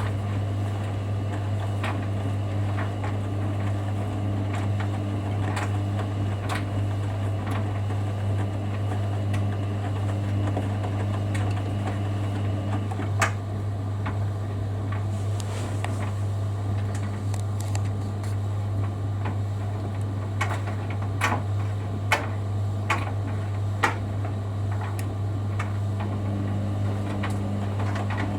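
Hoover Dynamic Next front-loading washing machine running its wash cycle with a steady low hum. A motor tone drops out about halfway through and returns near the end, and there are a few sharp clicks in the second half.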